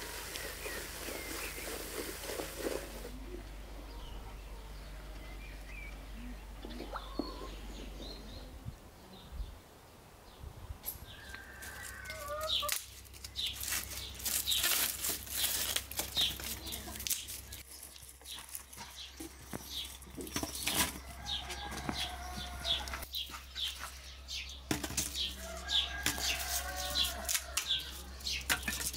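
Dry firewood sticks clattering and snapping in quick irregular cracks as they are handled and dropped into a tandoor. A hen clucks a few times in the background. In the first few seconds there is a softer wet hiss of a wooden spoon stirring bubbly yeast batter.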